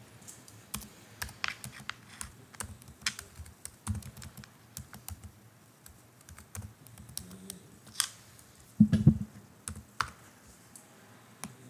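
Typing on a computer keyboard: irregular, separate keystrokes, with one louder thump about nine seconds in.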